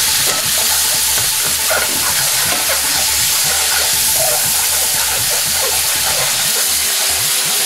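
Tomato paste thinned with water sizzling loudly and steadily in a hot frying pan of oil and onions, the water turning to steam, while a metal spoon stirs it through.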